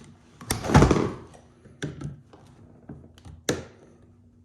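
A nail being struck to drive a stuck retaining pin out of a plastic toolbox: one heavy thunk about half a second in, then a few sharp separate taps and knocks, the loudest near the end.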